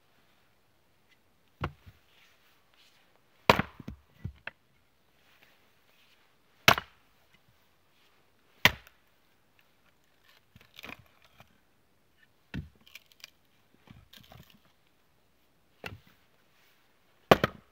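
Axe splitting firewood on a chopping block: about seven sharp wooden chops, one every one to three seconds, some followed by the clatter of split pieces falling.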